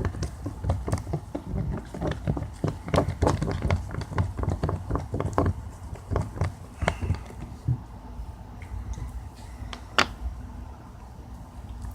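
Slime being squished and worked by hand: a quick run of sticky clicks and squelches that thins out after about six seconds, with one sharp snap near the end.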